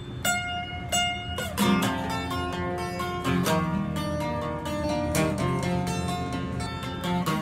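Steel-string acoustic guitar strummed in a steady rhythm. Near the start the strumming breaks off for about a second while two single notes ring out, then the chords pick up again.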